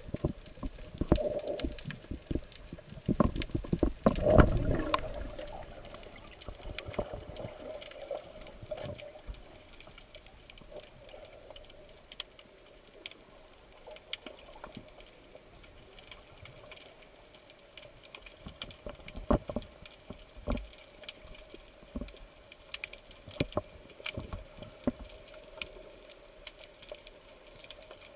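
Underwater sound picked up by a diver's camera: a steady crackle of scattered clicks, with a louder rush and thump of water movement about three to five seconds in.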